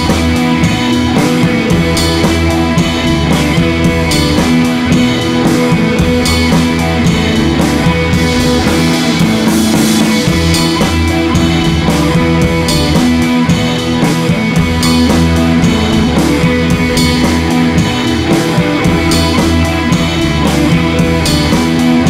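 Background rock music: guitar over a steady drum beat.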